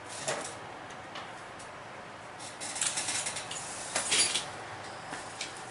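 Packaging and game pieces being handled: a few short rustles and clicks, bunched together about two and a half to three and a half seconds in, with the loudest just after four seconds.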